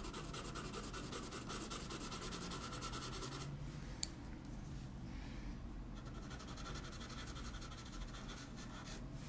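Coloured pencil scratching across toned paper in rapid short shading strokes. It stops for a couple of seconds, with one small click about four seconds in, and then starts again.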